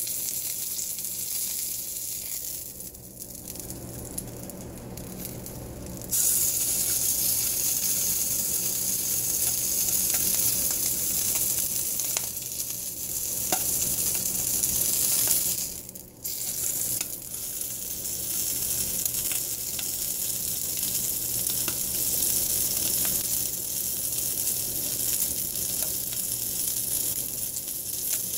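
Bacon wrapped around a grilled cheese sandwich sizzling in a frying pan as it is seared on its edge, with scattered small pops of spitting fat. The sizzle jumps louder about six seconds in, cuts out briefly around sixteen seconds, then carries on.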